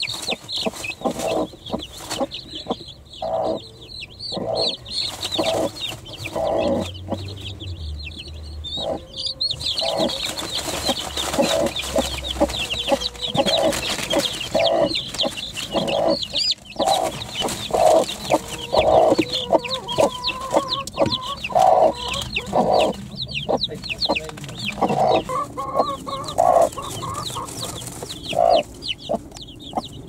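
A broody hen clucking in short, repeated calls while a crowd of young chicks peep continuously in high, quick chirps around her.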